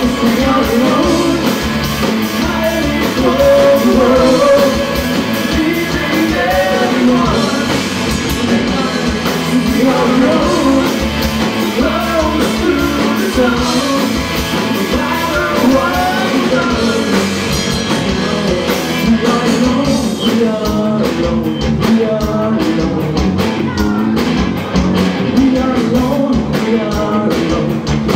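Rock band playing live: a sung vocal over guitars, bass and drums, the drums hitting harder near the end.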